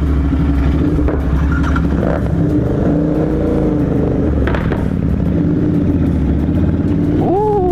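Royal Enfield GT 650's 650 cc parallel-twin engine running at a fairly steady throttle through an aftermarket Moto Torque exhaust on a Code6-tuned bike, its pitch rising and falling only slightly. A brief rising-then-falling tone comes in near the end.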